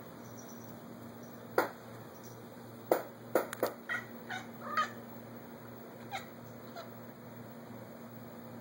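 Domestic cat chattering and chirping in a quick run of short clicks and chirps, a couple more about six seconds in: the excited chatter of a cat watching prey, here squirrels it cannot reach.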